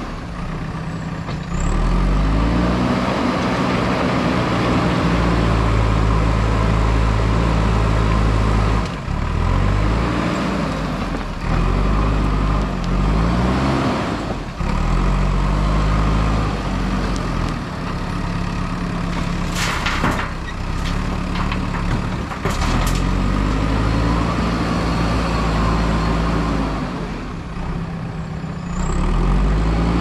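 A JCB backhoe loader's diesel engine runs and revs up and down repeatedly as the machine scoops, lifts and manoeuvres with soil. There are a couple of short hisses about twenty seconds in.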